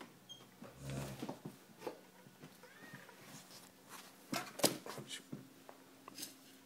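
Faint meowing of a domestic cat, with a few sharp knocks and clicks, the loudest about four and a half seconds in.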